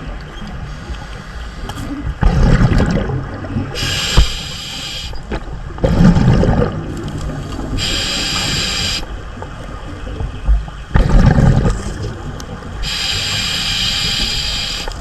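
Scuba diver breathing through a regulator underwater: bubbling bursts of exhaled air about every four to five seconds, alternating with the hiss of the demand valve on each inhalation.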